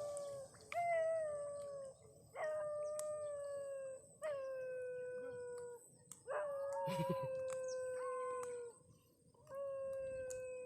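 A dog howling over and over: five long howls, each one to two and a half seconds, that start with a quick drop in pitch and then hold nearly level.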